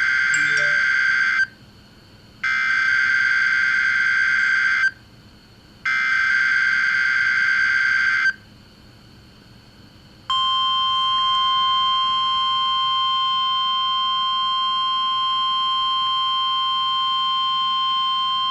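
NOAA Weather Radio broadcast of an Emergency Alert System test: the digital SAME header sent three times as loud screechy warbling data bursts about a second apart. About ten seconds in, the steady 1050 Hz warning alarm tone begins and holds.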